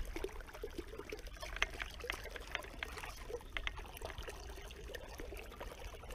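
Shallow river water trickling and lapping, with scattered small splashes and drips.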